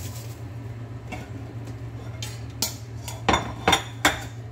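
Kitchenware clattering as bowls and a stainless-steel colander are moved and set down on the counter: a few light clinks, then three sharp knocks close together near the end, over a steady low hum.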